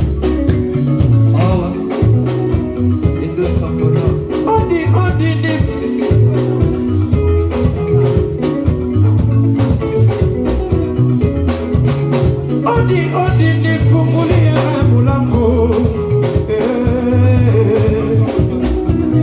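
A live band playing Congolese rumba, with a repeating bass line, a steady drum beat and electric guitar lines over it.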